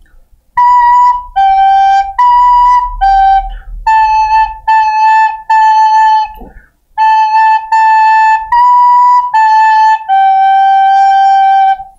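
Soprano recorder played slowly, twelve clean single notes on just B, A and G (si sol si sol, la la la, la la si la sol). There is a short break after the third A, and the final G is held for nearly two seconds.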